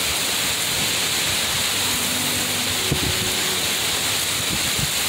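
Hurricane wind and driving rain lashing, a loud, steady rushing noise with no letup.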